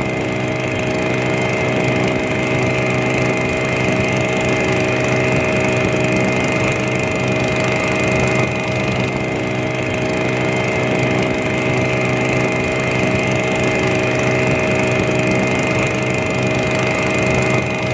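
Ketinting longtail boat engine, a small single-cylinder motor, running steadily at a constant speed with an even, unchanging pitch.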